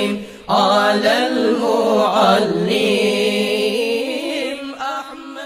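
Chanted Islamic shalawat: a single voice singing a long, wavering, ornamented melodic line over a steady drone, dropping out briefly at the start and fading near the end.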